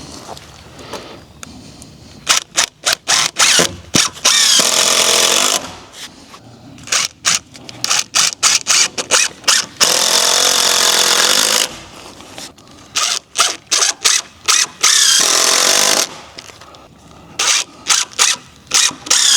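Power drill driving 3-inch deck screws into a wooden brace: bursts of short trigger taps, each leading into a steady run of one to two seconds as a screw is sunk, three times over.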